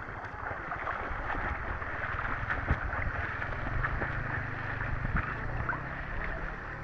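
Sea water sloshing and splashing close by, a steady rush with a low rumble and a few small splashes.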